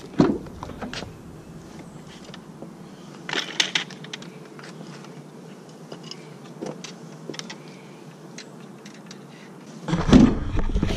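The rear hatch of a Kia Soul hatchback is unlatched and lifted, and fishing rods and a bucket are loaded in, with scattered knocks and a louder rattle about three and a half seconds in. Near the end the hatch is pulled down and shut.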